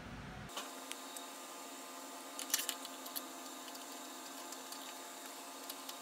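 Faint scattered clicks and ticks of metal hand tools and a small aluminum part being handled on a steel workbench, with a small cluster about two and a half seconds in. A faint steady hum lies underneath.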